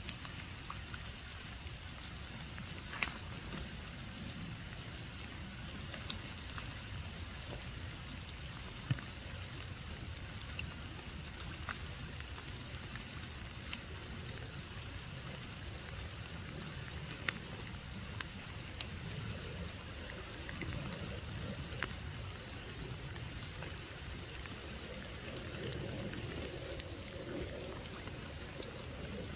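Scattered single raindrops ticking one at a time, a few seconds apart, over a steady low rumble of background noise.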